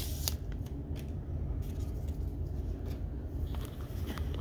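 Trading cards being handled and slid through the hands, making a few faint soft clicks and rustles, over a low steady background hum.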